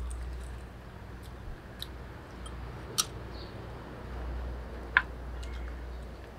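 Metal spoons and a ladle clinking a few times against small ceramic bowls during eating, sharp single clinks about two, three and five seconds in, over a low steady rumble.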